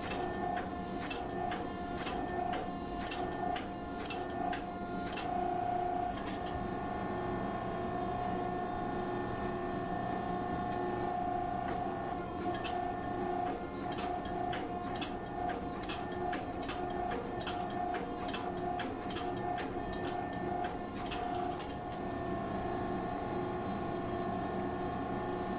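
A machine running steadily with a constant whine, and light clicks and ticks throughout.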